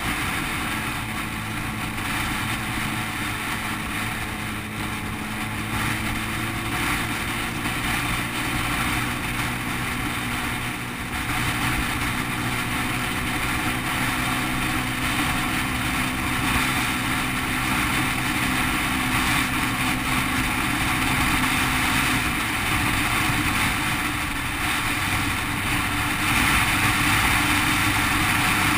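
Single-cylinder motorcycle engine running steadily at road speed, heard from the bike itself, under a continuous rush of wind noise. About three-quarters of the way through, the engine's note changes and the wind gets a little louder.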